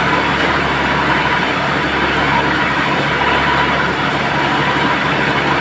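Tractor-mounted borewell drilling rig running steadily and loudly, with water gushing out of the borehole around the drill casing.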